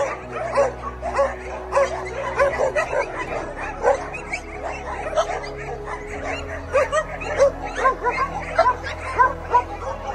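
Many dogs barking and yelping at once, a continuous overlapping chorus of short yips, with background music underneath.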